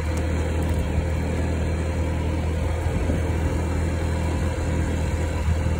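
Honda motor scooter's small engine running at a steady pitch, a continuous low hum with a hiss of road and air noise over it.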